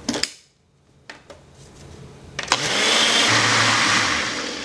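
Nutri Ninja blender blending coconut milk in its single-serve cup. A sharp click comes about two and a half seconds in as the cup seats on the base, then the motor runs loud with a low hum for about a second and a half and starts to die down near the end.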